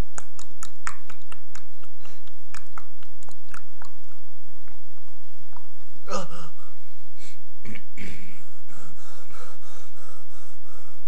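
Mouth-made sound effects: a run of irregular tongue clicks and lip smacks for the first few seconds, a short pitched vocal sound about six seconds in, then rhythmic breathy puffs about twice a second near the end.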